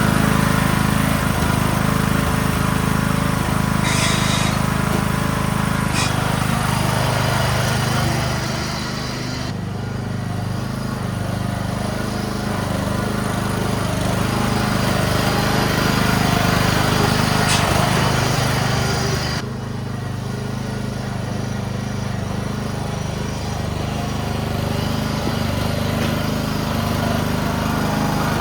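Yard-Man riding mower's Briggs & Stratton engine running steadily, growing quieter twice for a while, about a third and two thirds of the way through.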